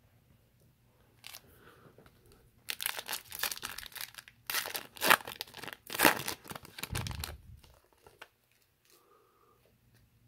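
Foil wrapper of an Upper Deck Series 1 hockey card pack being torn open and crinkled by hand: a run of loud crackling rips from about three to seven seconds in, ending with a dull low thump.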